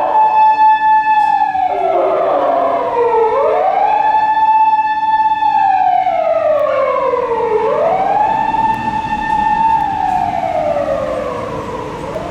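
Japanese police patrol car siren wailing: each cycle rises, holds high and falls slowly, repeating about every four seconds, three times. It grows fainter near the end.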